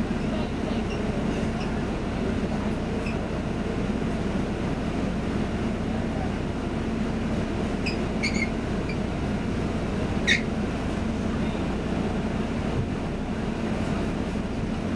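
London double-decker bus engine running steadily with the bus held still, a constant low hum and rumble heard from inside the bus. A few brief high squeaks come through about eight seconds in, and a sharper one about ten seconds in.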